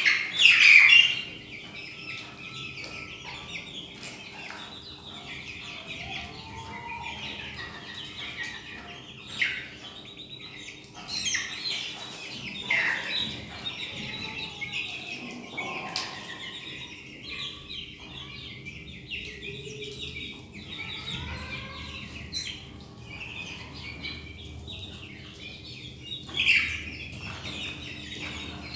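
A flock of Australorp chicks peeping: many overlapping high chirps with falling pitch, loudest about a second in, over a faint steady hum.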